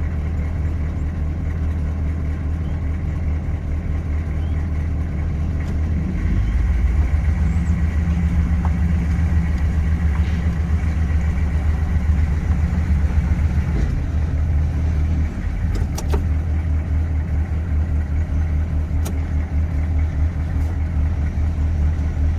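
Diesel truck engine running with a low, steady drone. It picks up load and gets louder for several seconds in the middle, then eases back.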